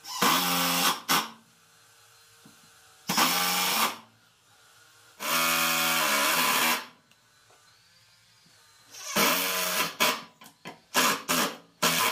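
Cordless impact driver driving screws into a wooden rail: five trigger pulls of about one to one and a half seconds, each spinning up in pitch. Near the end comes a quick run of short bursts as the screws are snugged down.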